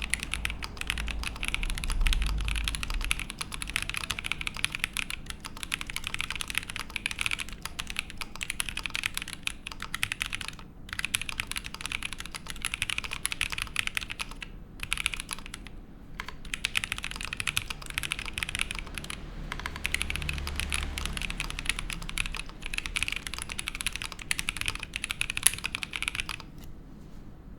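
Typing on a Fox Lab Sand Glass Ergo mechanical keyboard: a steady, fast stream of key clicks from lubed Boba U4T tactile switches on a gasket-mounted aluminium plate under GMK keycaps. The typing pauses briefly a few times and stops about a second before the end.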